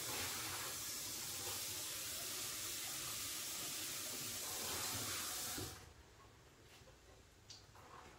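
Kitchen tap running into the sink while a bowl is washed out, then shut off suddenly about five and a half seconds in. A couple of faint clicks follow.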